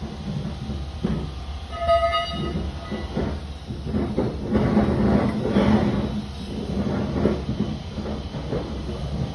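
A steady low vehicle rumble, with a short horn note about two seconds in and a stretch of irregular clattering and rattling that swells in the middle.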